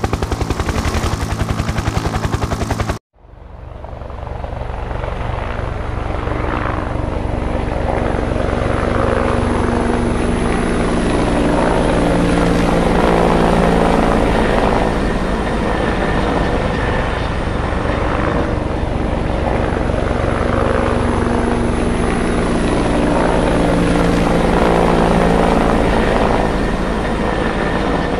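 Helicopter sound: a rapid rotor chop that cuts off abruptly about three seconds in, then a steady helicopter drone that fades back in and holds, swelling every few seconds.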